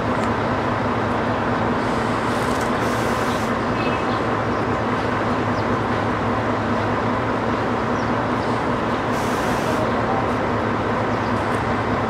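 Tour bus engine idling steadily with an even low hum, broken by two short hisses, one about two seconds in and one about nine seconds in.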